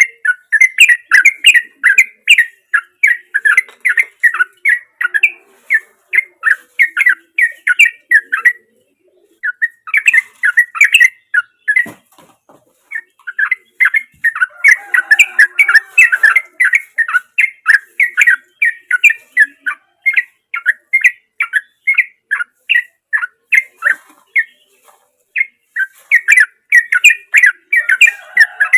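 Yellow-vented bulbul (trucukan) singing a long run of rapid, repeated notes, about four or five a second, broken by two short pauses about a third of the way in.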